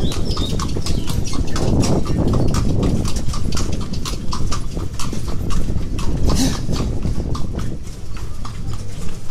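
A horse's hooves clip-clopping at an even trot on a hard road as it pulls a passenger cart, over the cart's steady low rumble.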